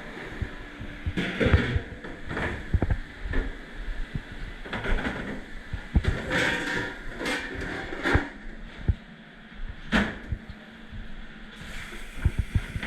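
Dishes and ware clattering and knocking in a commercial kitchen dish pit, with irregular knocks and short hissing bursts, the sharpest about ten seconds in.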